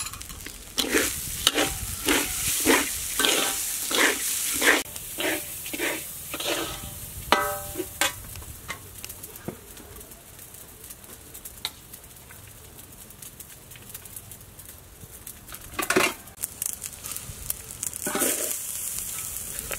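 Metal spatula scraping and stirring dry rice in a hot metal pan, about two strokes a second, with a light sizzle. The strokes stop about seven seconds in, leaving quieter occasional knocks and a couple of louder scrapes near the end.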